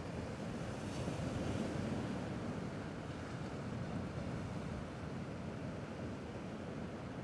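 Sea waves washing steadily, a slight swell about a second in, with some wind rumbling on the microphone.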